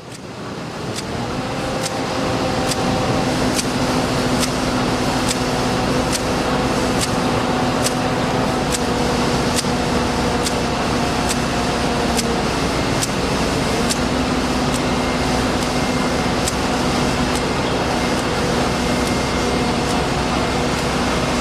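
A machine running steadily with a low hum, with a sharp tick repeating about every two-thirds of a second.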